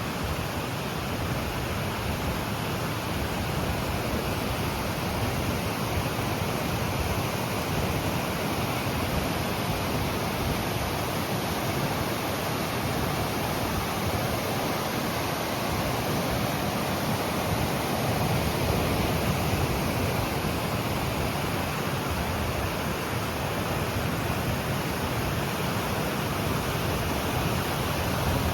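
Stäubifall waterfall: a steady rush of falling water, even and unbroken.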